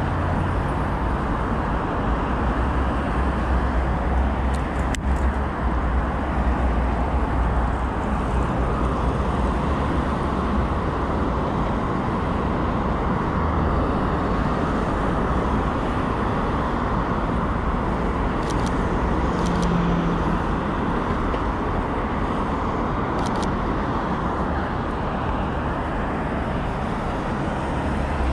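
Steady road traffic noise from cars driving along a multi-lane road close by, a continuous wash of tyre and engine sound with a heavy low end and a few faint ticks.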